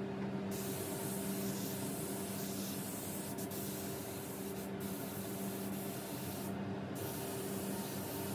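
Gravity-feed air spray gun hissing as it sprays paint onto a car roof. The hiss drops out briefly at the start and again about seven seconds in, over a steady low hum.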